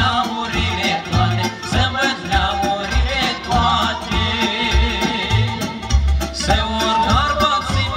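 Live Moldovan folk band music: accordion, brass and keyboard playing a lively tune over a steady bass beat.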